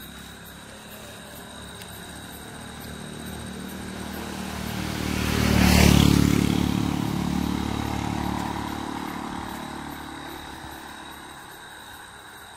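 A motor vehicle passes close by. Its engine builds over a few seconds, is loudest about six seconds in, then fades away.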